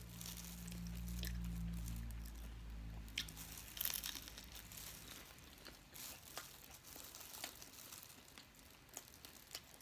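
A person chewing and biting food at close range: soft scattered crunches and mouth clicks. A faint low hum sits under the first two or three seconds.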